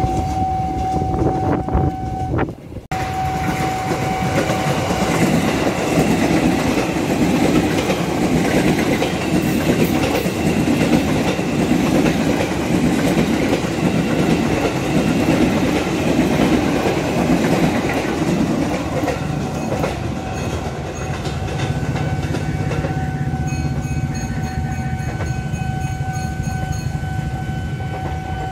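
A KRL electric commuter train running past on the tracks, its wheels clattering over the rail joints with a heavy rumble that fades after about 19 seconds. A steady high warning tone from the level crossing sounds through most of it.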